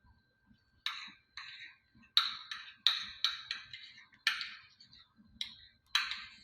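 A spoon clinking against a glass, about a dozen irregular strikes with short ringing tails, as a dalgona coffee mix is stirred or scraped.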